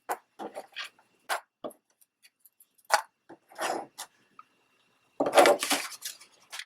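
Small craft supplies being handled and put away on a tabletop: scattered light clicks and knocks, then a rustling scrape lasting about a second, about five seconds in.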